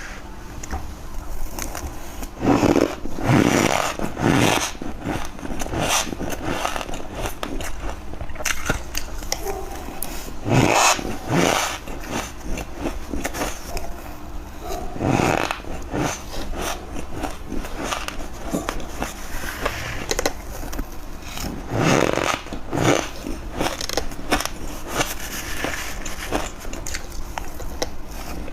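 Close-up bites into squeaky ice: sharp crunching cracks come at irregular intervals, a cluster of three or four in quick succession near the start, then single loud bites every several seconds, with quieter crackling and crunching in between.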